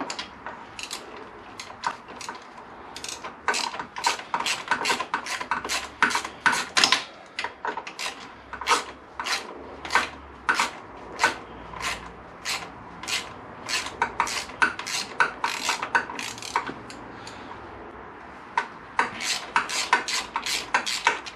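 Ratchet turning out a 10 mm bolt on the cam chain guide atop a motorcycle cylinder head: a long run of short rasping clicks, a few a second, with a brief pause near the end.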